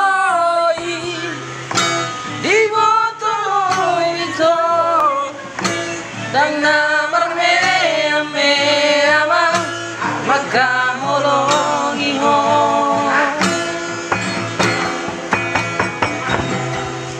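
A man singing a song over guitar accompaniment.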